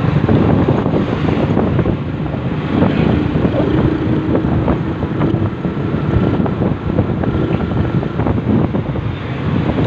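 Wind buffeting the microphone and road noise from a vehicle travelling at speed, a loud, continuous rushing with constant flutter. A faint steady hum comes through midway.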